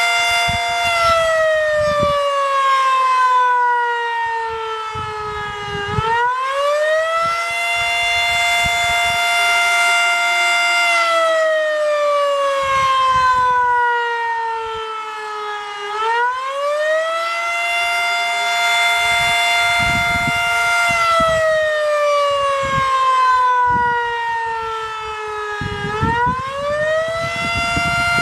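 W.S. Darley Champion fire siren sounding its full attack cycle: the pitch climbs quickly to a high held tone, holds for a few seconds, then slides slowly down, repeating about every ten seconds. It is loud throughout.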